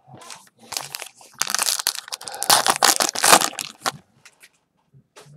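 Trading-card pack wrapper being torn open and crumpled by hand: light crinkling, then a dense burst of crackling from about one and a half to four seconds in.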